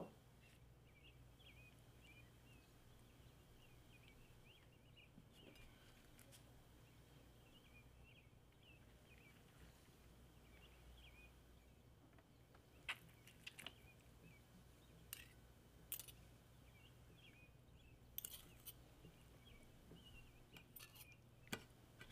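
Faint birds chirping in the background over a low steady hum, with a few light clinks of a metal spoon against a plate in the second half.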